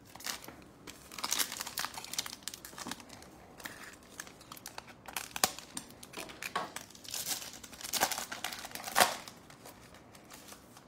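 Wrapper of a football trading-card pack being torn open and crinkled by hand, in irregular crackles with a few sharper snaps, the loudest near the end.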